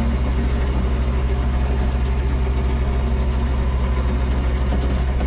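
An engine on the boat running steadily: a low, even drone with a rough mechanical whir over it.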